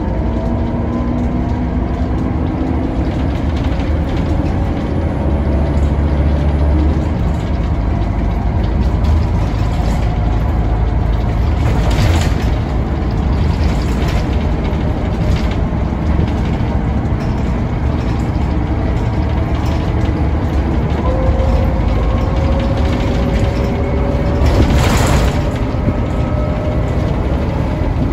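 Scania K94UB bus heard from inside the cabin while under way: its rear-mounted 9-litre Scania DC9 turbo diesel runs with a strong low drone, and a whine rises in pitch as the bus gathers speed. Two brief hissing bursts come about halfway through and near the end.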